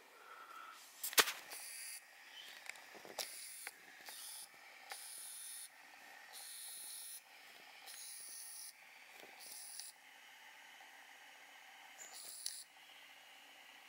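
Faint camera lens autofocus motor whirring in short, repeated bursts as it hunts for focus on a macro shot, with a sharp click about a second in.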